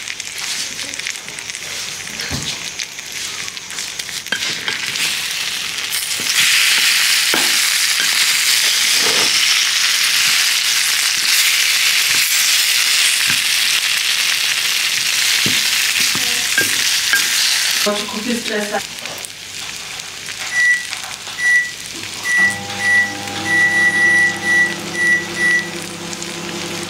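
Hot roasted vegetables sizzling in a ceramic baking dish while a wooden spatula stirs them; the steady sizzle gets louder about six seconds in. About two-thirds of the way through the sizzle stops and background music with a repeating high note takes over.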